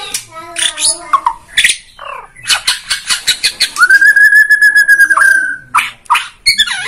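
White-rumped shama (Bornean murai batu) singing a varied song: a rapid run of sharp ticking notes, then one long steady whistle lasting about a second and a half, followed by a few sharp, harsh notes near the end.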